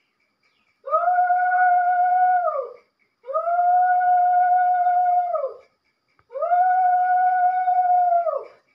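Conch shell (shankha) blown three times. Each is a long, steady blast of about two seconds that scoops up into the note and drops off at the end.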